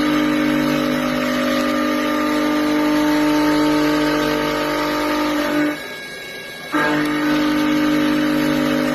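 A CNC machine running with a steady tone over a noisy hiss. It cuts off abruptly about six seconds in and starts again a second later.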